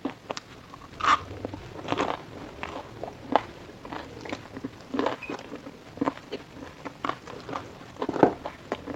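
Close-up biting and chewing of crisp fried food, with irregular crunches; the loudest bites come about a second in, around two seconds in and near the end.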